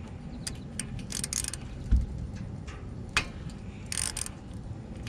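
Socket wrench clicking and metal clinking as the wrench works the oil drain plug under the generator, with a dull thump about two seconds in.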